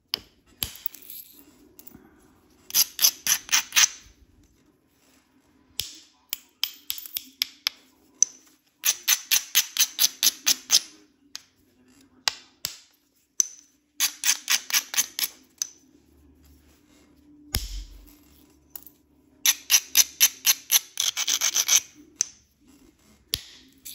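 An abrader stone rubbed back and forth along the edge of a heat-treated Flint River chert biface, grinding the edge to prepare striking platforms. It goes in rapid runs of about eight gritty strokes a second, each run lasting one to two seconds, with pauses between. A single low thump comes about three quarters of the way through.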